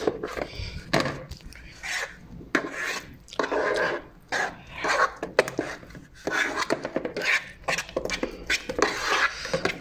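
Spatula scraping against a bowl and working through a thick cream cheese and whipped cream mixture as it is folded, in repeated scraping strokes about once or twice a second.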